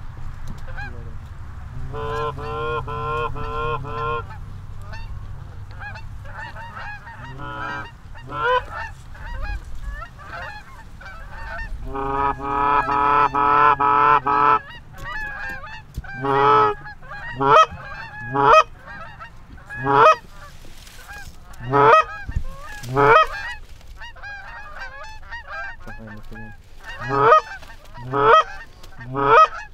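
Geese honking: two fast runs of evenly spaced honks, each about two seconds long, then loud single honks about once a second, each rising sharply in pitch.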